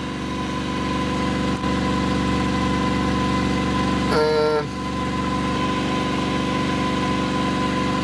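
A generator engine running steadily under load while it charges the battery bank. A brief higher-pitched sound comes about four seconds in.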